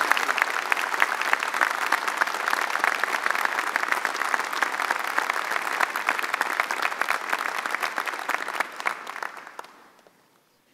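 Audience applauding, many hands clapping at once, dying away about nine seconds in.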